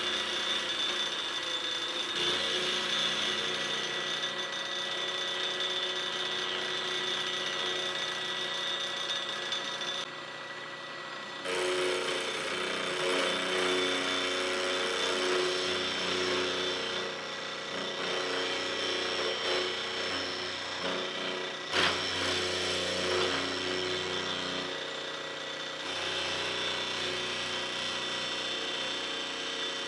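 Milling machine running with its end mill cutting a raw cast-iron bearing-block casting, a steady machining sound with held tones. About a third of the way in the sound drops briefly, then comes back louder with a changed pitch as the cut goes on, and there is a single sharp knock about two-thirds of the way through.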